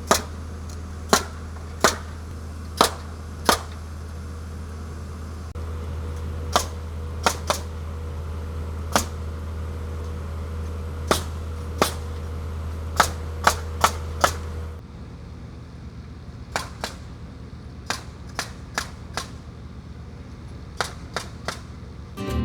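Nails being driven into wood framing: a run of sharp cracks about once a second, with a steady engine hum under them. The hum stops about two-thirds through, and fainter, more scattered cracks follow.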